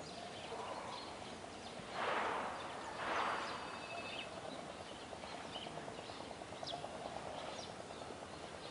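Outdoor ambience with scattered short bird chirps, and two brief rushing swishes about two and three seconds in.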